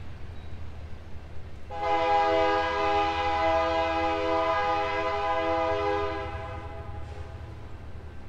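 Freight train's air horn sounding one long blast, a chord of several notes, starting about two seconds in and fading out after about four and a half seconds.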